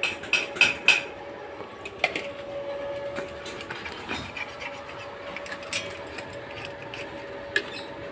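Workshop handling noise from a tape measure and a sheet-metal strip: a quick run of sharp clicks and taps in the first second, then scattered light taps and scraping, over a steady faint hum.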